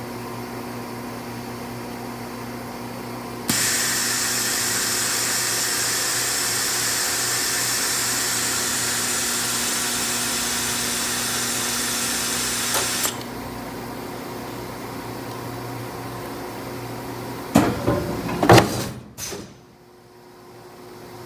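A small motor of a powered mechanical arm starts abruptly and runs steadily for about ten seconds, then cuts off, over a constant electrical hum. A few seconds later there is a short cluster of loud knocks and handling noises.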